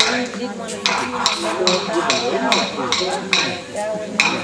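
Men chanting a traditional Gamilaraay song, accompanied by clapsticks struck in a steady beat of about two and a half strikes a second, with a brief break in the beat near the start.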